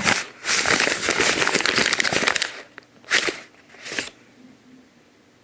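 A crumpled sheet of paper being unfolded and smoothed flat by hand: dense crinkling for about two and a half seconds, then two short crinkles about a second apart.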